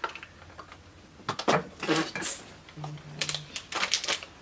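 Irregular light clicks and rustles of small objects being handled, with a brief low hum about three seconds in.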